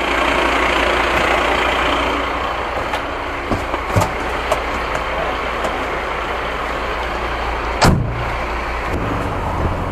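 Fire engine's engine idling steadily, heard close by as a firefighter climbs into the cab, with a few knocks about four seconds in and the cab door slamming shut near the end.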